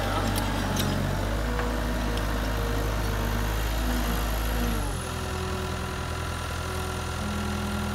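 Cat 297C compact track loader's diesel engine running steadily, then its revs dropping to a lower idle about five seconds in.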